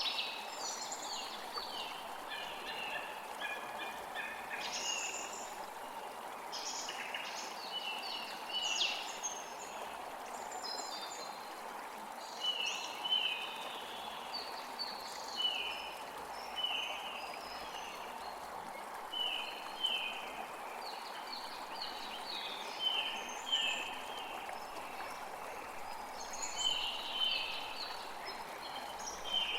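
Songbirds chirping and singing over a steady rush of running water. In the middle there is a run of short, falling notes repeated about once a second.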